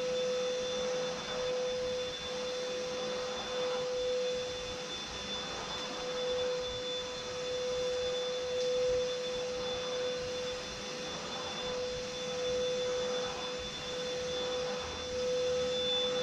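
Dibea ST1601 cordless stick vacuum running on max power while cleaning a rug: a steady high motor whine over the rush of air, swelling and easing a little every couple of seconds.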